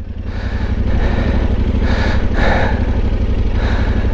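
Yamaha Ténéré 700's parallel-twin engine running as the motorcycle is ridden, picking up over the first second and then holding steady.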